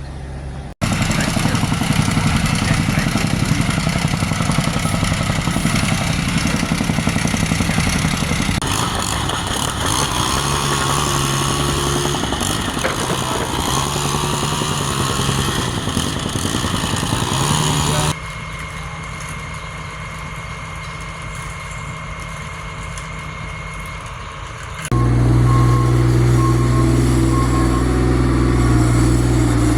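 Engines of vehicles or work machinery running steadily, with voices at times, in several clips that cut abruptly from one to the next.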